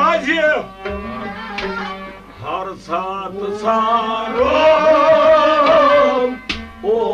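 Kashmiri Sufi song: a man singing wavering, ornamented lines with a long held, quavering note in the middle, over a steady drone and hand-drum strokes.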